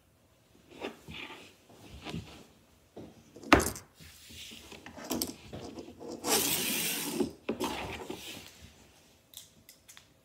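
Scattered taps, clicks and rustles of small plastic toys being handled on a tabletop, with a sharp knock about three and a half seconds in and a longer rustle a little after six seconds.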